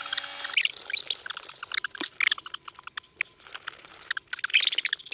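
A rat squeaking in rapid, high-pitched chirps, mixed with sharp clicks and scratchy ticks, loudest bursts about a second and a half in and near the end.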